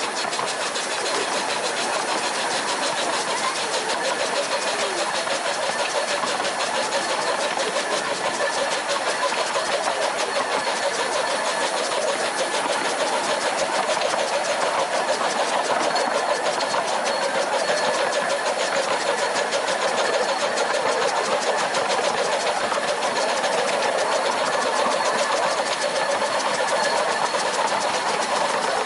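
Bassett-Lowke Class 30 Atlantic 15-inch gauge steam locomotive running along the line, a continuous even working sound without a break.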